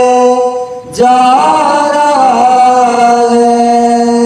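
A man singing a naat, an Urdu devotional song, in long held notes. He breaks for a breath about a second in, then wavers through an ornament before settling onto a long steady note.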